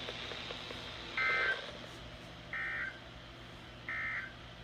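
Three short bursts of two-tone digital data warble, about a second and a half apart, from a NOAA Weather Radio broadcast: the SAME End of Message code that closes the Required Weekly Test.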